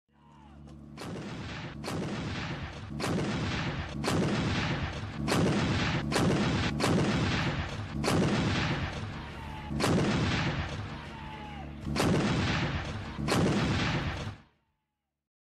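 Artillery gun firing about a dozen shots at uneven intervals, each a sharp report followed by a rolling rumble, over a steady low hum. The firing stops abruptly near the end.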